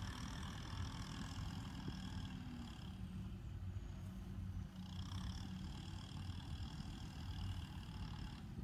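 Farm tractor diesel engine running steadily at low revs, a continuous low rumble.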